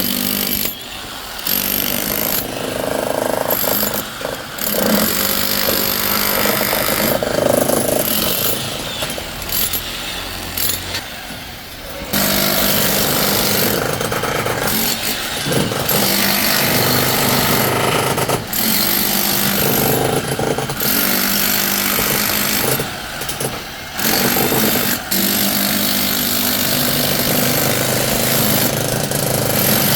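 A loud hammering power tool on a construction site, such as a demolition breaker, running in long stretches broken by several brief pauses.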